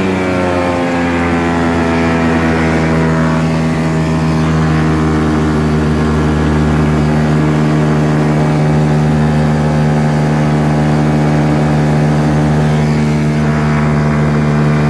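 Rans S12 ultralight's engine and propeller running under power; the engine note drops over the first second, then holds steady.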